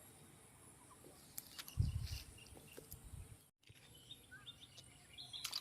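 Quiet outdoor ambience with a few faint clicks and short chirps, and a dull thump about two seconds in.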